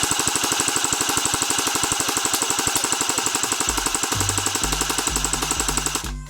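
Airsoft gun firing on full auto: one continuous rapid stream of shots at an even rate, cutting off abruptly near the end.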